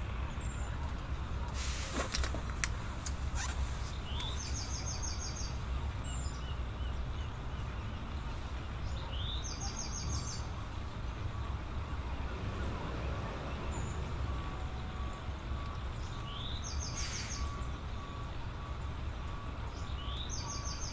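A bird calls repeatedly over a steady low background rumble. Each call is a short rising note followed by a quick run of high repeated notes, heard about four times, a few seconds apart.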